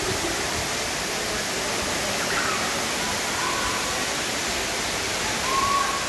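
Tall man-made indoor waterfall pouring down a planted rock wall: a steady, even rush of falling water.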